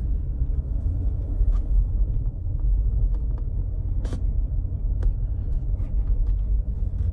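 Steady low rumble of a car, heard from inside the cabin as it drives slowly to pull over, with a few faint clicks.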